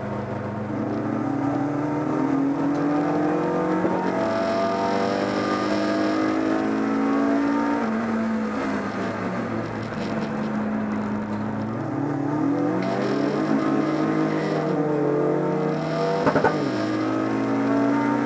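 BMW 318is race car's four-cylinder engine heard from inside the cabin under racing load, its pitch climbing as it revs out and dropping back at gear changes and as it slows. A brief sharp knock sounds near the end.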